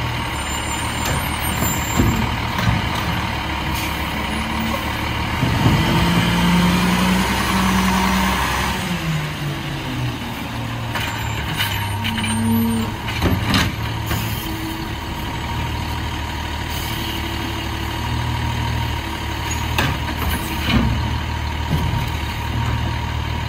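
Diesel Autocar WXLL garbage truck with a McNeilus Autoreach side loader running. Its engine speeds up about five seconds in and settles back down a few seconds later, with a few sharp knocks along the way.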